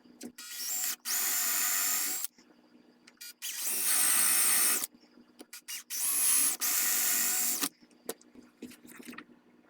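Power drill boring a series of holes into a walnut rifle buttstock to hog out wood for the buttplate trapdoor's pivot and spring, in three runs of one to two seconds each with a high motor whine, stopping briefly between holes.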